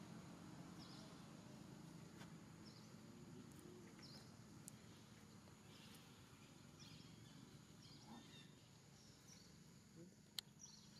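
Near silence: faint outdoor ambience with short, high chirps about once a second and a single sharp click near the end.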